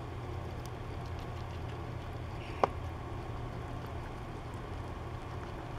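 Steady low machine hum with one sharp click about two and a half seconds in.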